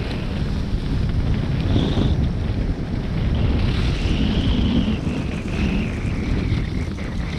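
Wind buffeting the microphone of a camera carried by a skier at speed, mixed with the hiss of skis sliding on packed snow. A faint high whistle slides slowly down in pitch in the second half.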